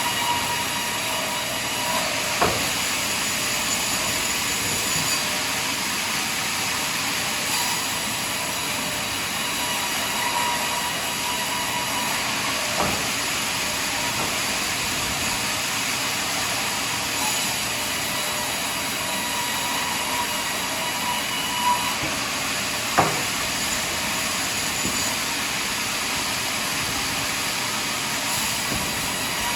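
Portable sawmill running steadily as it saws through a large pine log, with three sharp knocks about ten seconds apart.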